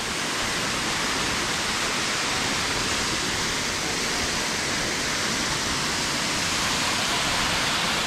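Powerscourt Waterfall, Ireland's highest at about 120 metres, falling into its plunge pool: a steady, unbroken rush of water. Wind gusts on the action-camera microphone add to the noise.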